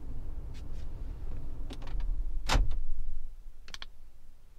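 Toyota Land Cruiser Prado 4.0 V6 petrol engine idling, heard from inside the cabin as a steady low rumble. It is running normally on a newly replaced fuel pump. A few light clicks and one sharp knock about two and a half seconds in sound over it.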